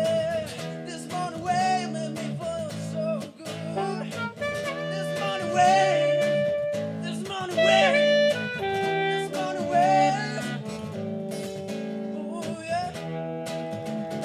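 Music: a song playing, with a wavering melodic lead line over steady chords and no words heard.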